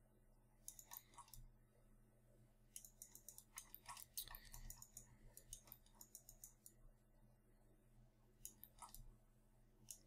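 Near silence with faint, irregular clicks from a computer mouse and keyboard over a low steady hum.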